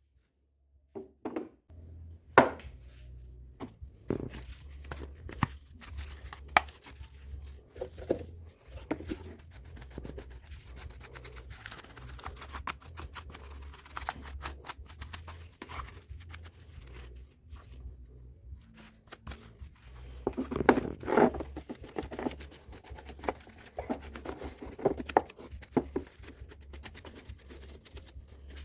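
Irregular scraping and rustling with scattered clicks and knocks, from hand-cleaning and handling the parts of a Stihl MS 181 chainsaw.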